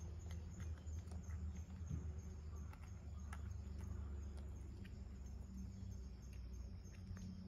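Cat crunching and chewing a dried sardine, small irregular crunches over a low steady rumble.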